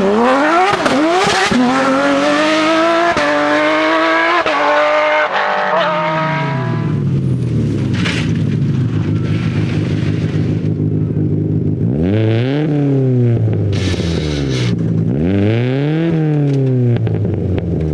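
Rally car engine accelerating hard, climbing in pitch and upshifting several times before the sound drops away. Later the engine revs up and falls back twice.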